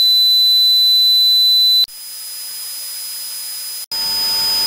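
Simulated tinnitus sounds: a steady high-pitched ringing tone over a hiss, which cuts abruptly to a quieter hissing ring at a different pitch about two seconds in. A second or so later it changes again, to another high ringing joined by a lower steady tone.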